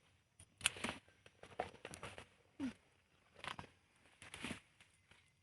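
Intermittent rustling and crackling of sweet potato vines and leaves being handled, with a few sharper snaps.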